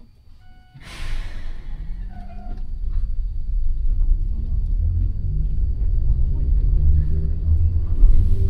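Inside an Enoden 1000-series car, the train starts from a stop. Its nose-suspended traction motors and gears hum louder and rise in pitch as it accelerates. A short hiss comes about a second in.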